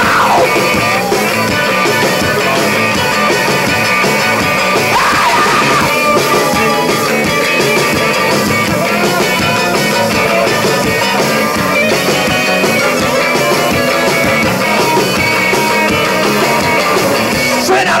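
Live rock band playing an instrumental passage: electric guitar, bass guitar and drums together, picked up by a camcorder microphone in the crowd.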